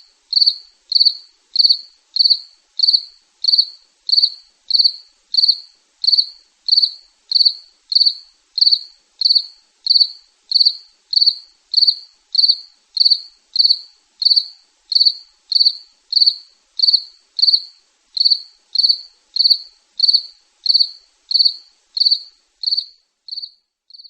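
A cricket chirping at night: short high-pitched chirps in a steady, even rhythm, about three every two seconds. The chirps fade and stop near the end.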